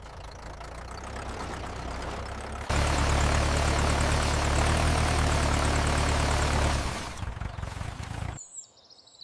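Tractor engine sound effect running: it starts quieter, gets suddenly louder with a steady low drone about three seconds in, and dies away about a second before the end.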